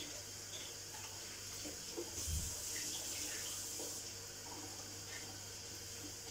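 Kitchen tap running into the sink with a steady hiss while a cloth is wetted under it. A low thump about two seconds in.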